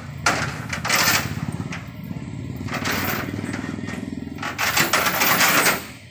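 A lorry's diesel engine idling with a steady low rumble. Several loud bursts of rushing noise play over it, the longest near the end.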